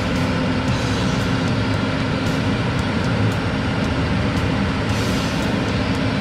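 Heavy farm machinery's diesel engine running steadily under load, with a few light clicks now and then.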